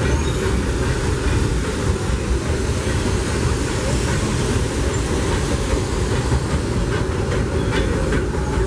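Steady rumble and clatter of a narrow-gauge railroad passenger car rolling along the track, heard from aboard, with faint clicks of the wheels over rail joints toward the end.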